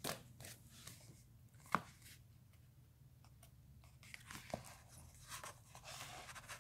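Faint handling of comic books: a few light taps and soft paper rustles as a comic is picked up and opened to its pages.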